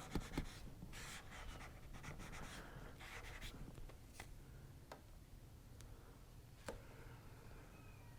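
Faint rubbing and swishing of a vinyl graphics decal being smoothed down onto a motorcycle body panel to work out air bubbles, with a few light clicks.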